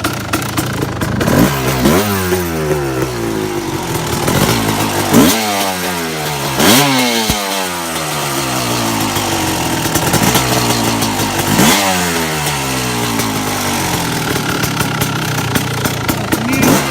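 A 2001 Kawasaki KX250's single-cylinder two-stroke engine, fitted with an FMF Gold Series exhaust, idling and being blipped about five times. Each time the revs rise sharply and then fall back toward idle.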